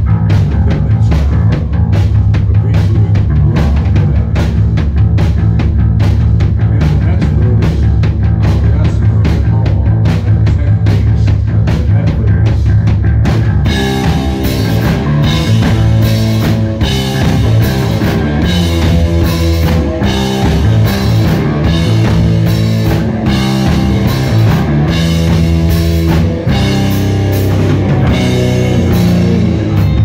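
Rock band playing live on electric guitars, bass and drum kit, driving a steady heavy beat. About halfway through the sound fills out and gets much brighter as more of the band comes in.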